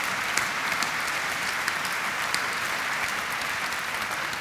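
Seated audience applauding, a steady dense patter of many hands clapping.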